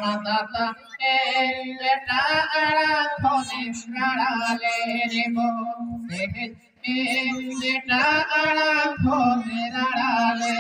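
A man singing into a microphone over a loudspeaker system, in long held phrases with short breaks, over a steady low tone.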